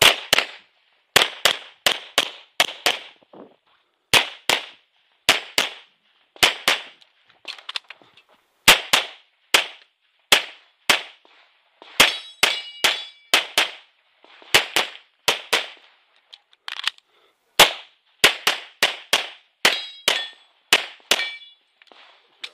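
Tanfoglio Limited Custom Extreme pistol in .40 S&W firing a long string of shots on an IPSC course, mostly in quick pairs with short pauses between groups. Steel targets ring after some hits about halfway through and again near the end.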